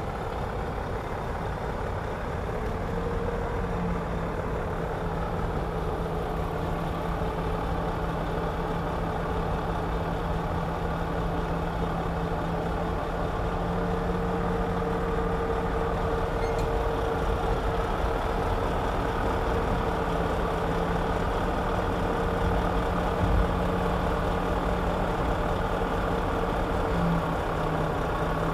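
Komatsu D61EX bulldozer's diesel engine running steadily, with a low hum and a higher whine that shift slightly in pitch. A single short knock is heard late on.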